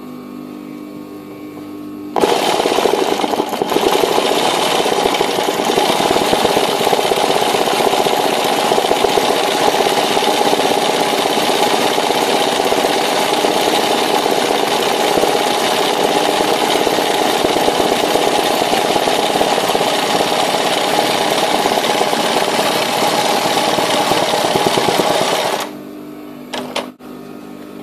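Embroidery machine stitching a silver metallic-thread satin fill at high speed, a fast steady needle clatter that starts about two seconds in and stops shortly before the end. Before and after it the motor hums steadily, with a couple of clicks as the machine stops.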